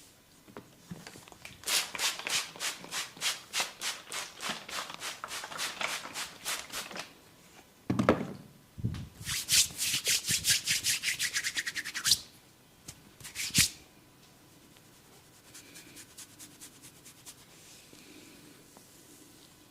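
Hands rubbing briskly over hair and scalp in a head massage, in runs of quick rhythmic strokes about five to seven a second, with a low thump about eight seconds in.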